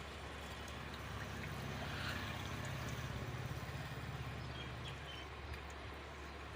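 An engine running, with a low pulsing hum that grows louder about a second in and fades again after about five seconds.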